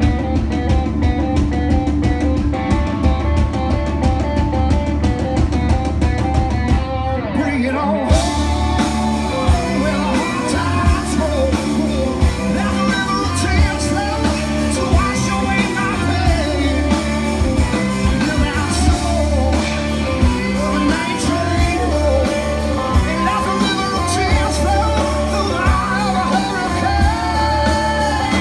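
Live rock band playing: electric guitars over bass and drum kit. About eight seconds in the sound grows fuller and brighter, with a bending melodic line on top.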